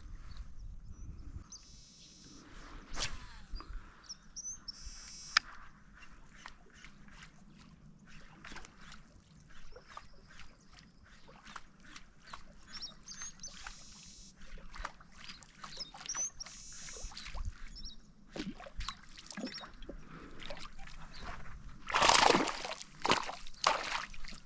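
Water sloshing and splashing close by, with scattered light clicks and small bird chirps. Near the end comes a louder burst of splashing, typical of a small hooked peacock bass thrashing at the surface as it is brought in.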